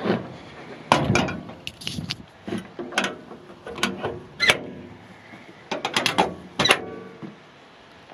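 About a dozen sharp metal clacks and clicks, with a quick cluster near the end, as the engine hood of a Caterpillar 316E excavator is handled and its latch worked.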